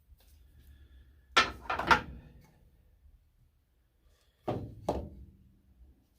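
Wooden pieces knocking against each other and the workbench while a frame jig is being handled: a quick cluster of three or four knocks about a second and a half in, then two more about half a second apart later on.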